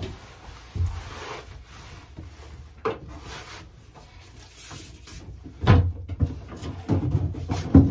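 A thin waterproof wallboard ceiling panel rubbing and scraping as it is slid into place overhead against aluminum ceiling beams, with a few knocks, two louder ones in the second half.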